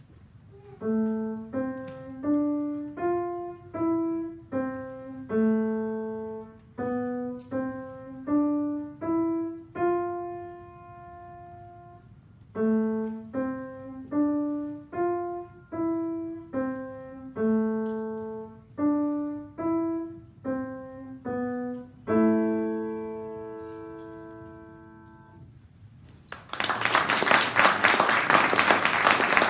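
Grand piano played slowly: a simple melody of single notes, each left to ring, with a short held pause about halfway through, closing on a sustained chord. Then an audience applauds, louder than the piano.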